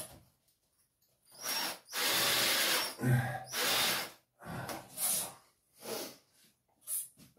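Power drill boring into the wall in a run of bursts: a long, loud one about two seconds in, then several shorter ones.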